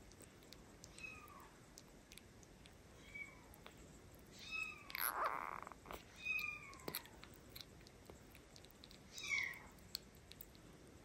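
A tiny kitten mewing while suckling from a milk bottle: about five short, high, falling cries, the loudest around the middle, with small wet clicks of its mouth on the bottle's nipple in between.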